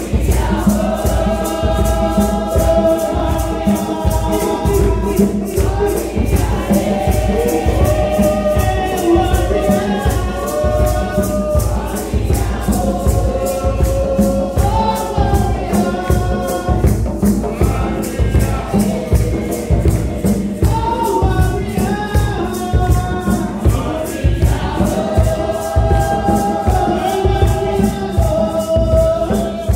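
A church choir singing a lively gospel song, a woman's lead voice on the microphone with the choir joining in, over a steady fast beat of hand percussion, about four strokes a second.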